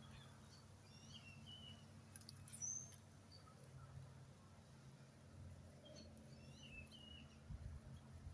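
Faint songbird chirps: short, high, squeaky notes in little clusters about a second in and again around six to seven seconds in, over a steady low hum.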